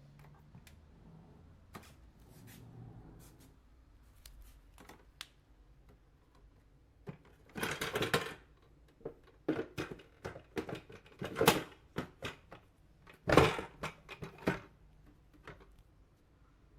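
Handling noises: a string of light clicks and knocks, with louder rustling, scraping clatters about halfway through and again near the end.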